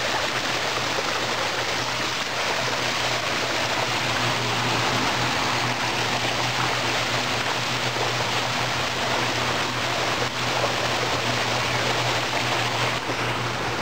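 Water rushing steadily down a fibreglass water slide, a constant running-water noise with a low steady hum underneath.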